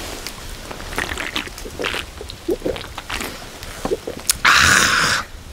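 A man swallowing from a drinks can, with small clicks and gulps, then a loud breathy exhale just under a second long near the end.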